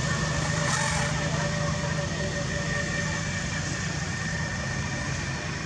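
A steady low motor hum over a constant background noise, with a brief rustle a little under a second in.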